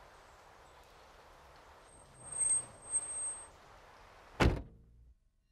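Faint steady hiss with two short louder swells, then a single heavy thunk about four and a half seconds in that rings briefly before the sound cuts off.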